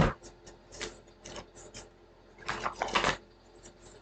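A series of light clicks and taps from small objects being handled, with a quick cluster of them about two and a half seconds in, over a faint steady hum.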